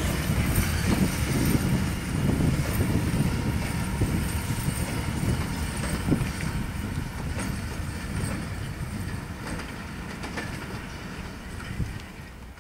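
ET22 and ET42 electric locomotives coupled together rolling along the track during shunting: a low rumble with occasional wheel clicks over rail joints, fading steadily as they move away.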